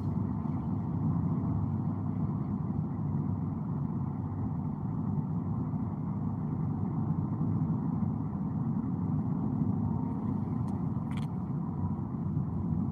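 Steady road and engine noise heard inside the cabin of a moving car, with one brief click about eleven seconds in.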